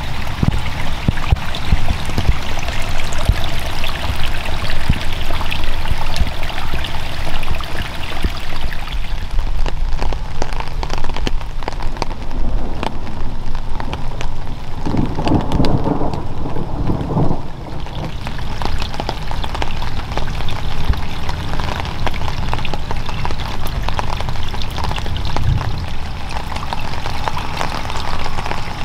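Steady rain falling, with many fine drop impacts throughout. A low rumble of thunder comes about halfway through.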